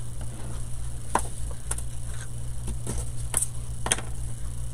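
A handful of light clicks and taps as small painted wooden craft cutouts and a glue bottle are handled and set down on a paper-covered counter, over a steady low hum.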